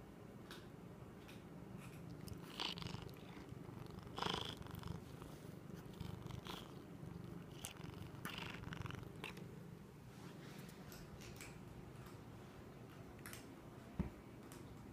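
Kitten making a low, continuous rumbling noise while it eats, with short eating sounds breaking in every second or two; a single sharp knock near the end.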